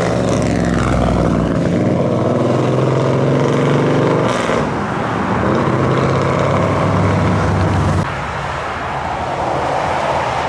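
Hot-rodded Ford Falcon's engine running loudly as the car drives past and pulls away, its pitch steady with a short break about four seconds in. After about eight seconds it gives way abruptly to quieter passing street traffic.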